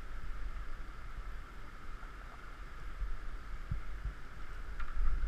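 Moving river water rushing steadily over a shallow riffle, with a low rumble and a few soft low thumps, the last near the end.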